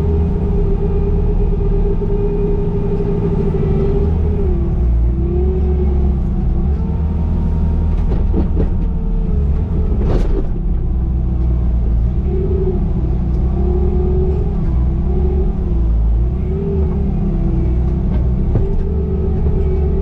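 Bobcat T595 skid steer's diesel engine running hard and steady, its pitch sagging and recovering several times from about four seconds in as the machine works. One sharp knock about halfway through.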